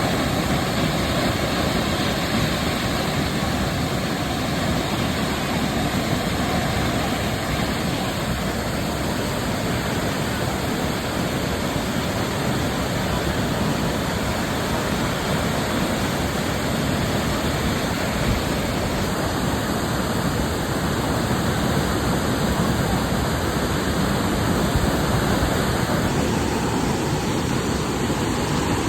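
Waterfall: the steady, loud rush of falling water.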